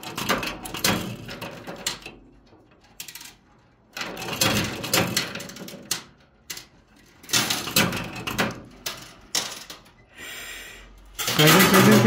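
Coin pusher machine: metal coins clinking and clattering against the coin piles on its shelves, in several short bursts with quiet gaps between them.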